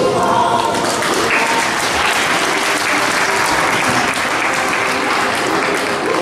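Audience applauding, swelling about a second in, over faint background music.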